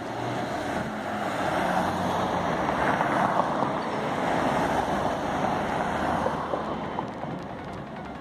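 Rushing noise of city street traffic, swelling to its loudest about three seconds in and fading toward the end, as a vehicle goes by.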